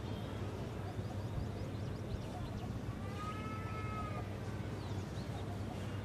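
An animal call: one drawn-out, arching, pitched call about three seconds in, with a few short high chirps before and after, over a steady low rumble.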